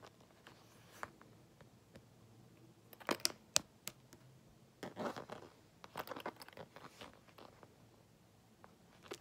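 Handling noise from a coated-canvas handbag and its gold-tone metal zipper pull being fingered: scattered faint clicks and rustles, a cluster of sharp clicks about three seconds in as the loudest part, and rustling again around five to seven seconds.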